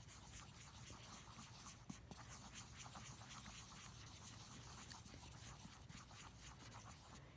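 Faint, quick scratching and scraping of a pencil stirring food colouring into soft soap slime in a container.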